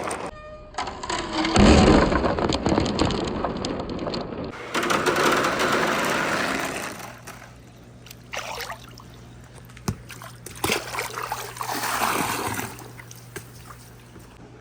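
Water streaming and splashing down a wooden marble-run channel as marbles roll through it. It is louder for the first half and quieter after about seven seconds, with a few sharp clicks and short swishes.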